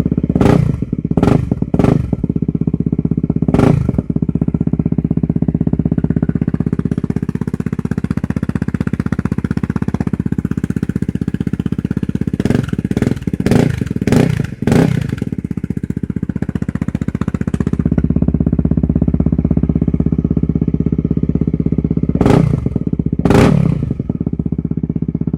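Honda CRF250L's single-cylinder four-stroke engine idling steadily through a Yoshimura RS4 exhaust, with sharp throttle blips: a few near the start, a quick run of about five in the middle, and two near the end.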